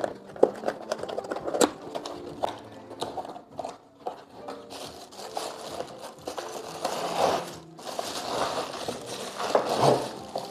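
Hands opening a cardboard box by hand: the flap is peeled and pulled open with a run of sharp clicks and scrapes. Then the plastic-bagged stand is slid out, and the bag rustles in swells in the second half.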